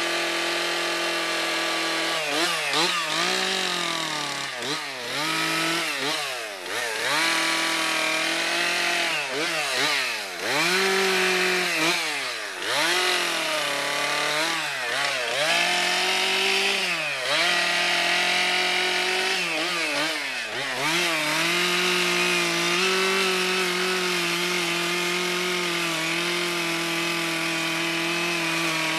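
Gasoline chainsaw carving into a log. The engine runs steady, then from about two seconds in its pitch dips and recovers over a dozen times as the chain bites into the wood and bogs under load, before it runs steady again for the last several seconds.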